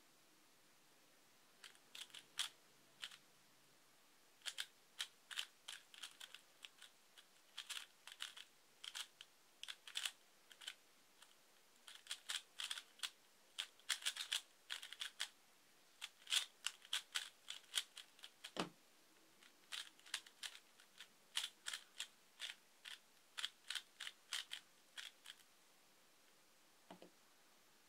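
Valk 3 3x3 speed cube being turned fast: rapid runs of sharp plastic clicks as the layers snap round, broken by short pauses. A single dull thump comes about two-thirds of the way through, and a soft knock near the end.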